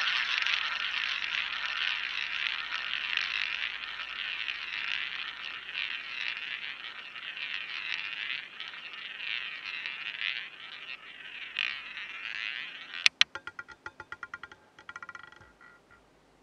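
Roulette ball rolling round the ball track of a spinning wheel, its whir fading as it slows. Near the end it drops with a sharp clack, then rattles in a quick run of fading clicks as it bounces among the pocket separators and settles.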